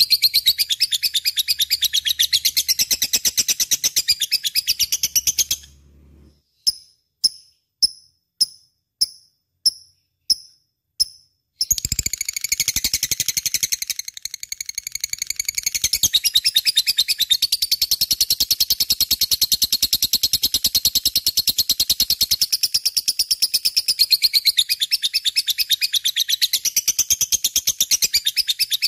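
Lovebird chattering in a rapid, nonstop stream of high-pitched chirps, the 'gacor' song used to prompt other lovebirds to sing. About six seconds in it breaks into about eight single sharp chirps roughly half a second apart, then goes back to the rapid chatter.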